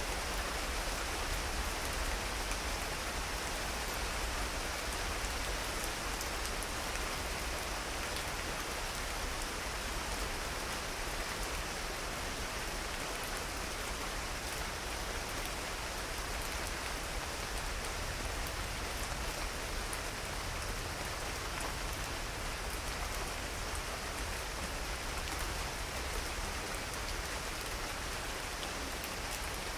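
Steady rain falling, an even hiss with the fine ticking of individual drops on surfaces.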